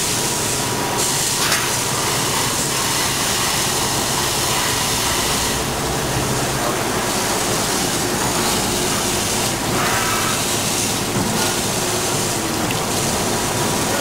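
Kent KGS-63WM1 surface grinder at work: the grinding wheel passes over small round parts on the chuck under coolant, making a steady hiss of wheel and coolant spray. The hiss brightens and dulls every few seconds over a faint steady hum.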